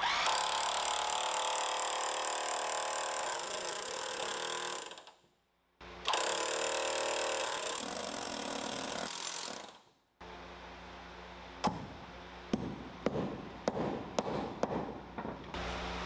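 An old electric hammer drill running in two bursts, about five seconds and then about four seconds, each winding down as it stops, while drilling for anchor bolts through a sill plate. This is followed by a series of light knocks and clicks.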